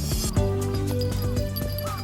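Background music: cheerful track with held melody notes, a bass line and a light steady beat.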